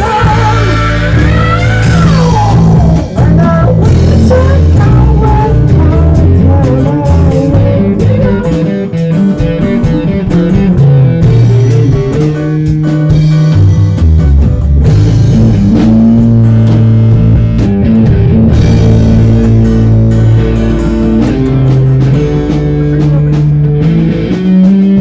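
A rock band playing with guitar, bass and drum kit, loud and continuous, with a sliding, bending melodic line in the first couple of seconds.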